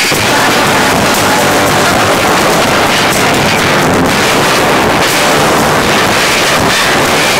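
Live rock band playing electric guitar and drums at high volume, recorded right beside a PA speaker so the sound is heavily overdriven and distorted.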